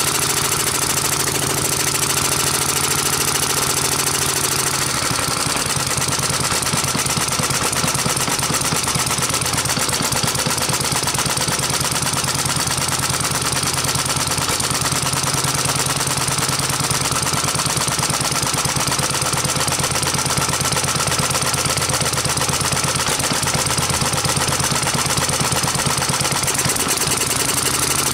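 A 1936 Briggs & Stratton Model H single-cylinder, air-cooled four-stroke stationary engine running steadily with an even firing beat. Its running note shifts about five seconds in.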